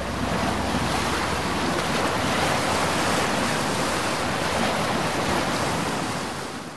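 Steady rushing noise, even across low and high pitches, fading near the end.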